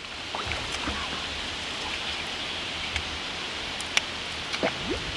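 Steady hissing river ambience of flowing water and breeze, with a few faint clicks and a short rising squeak near the end.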